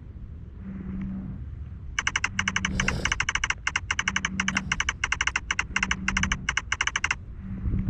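Ghost-hunting app's "receiving response" sound effect: a rapid electronic clicking chatter, like a teletype, starting about two seconds in and stopping about a second before the end, over a low hum that pulses about once every second and a half.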